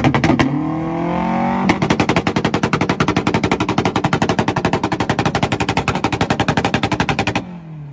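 Honda's engine revving up, then held on its two-step launch limiter, firing rapid, even pops, about ten a second, for five or six seconds. It cuts off abruptly and the revs fall away.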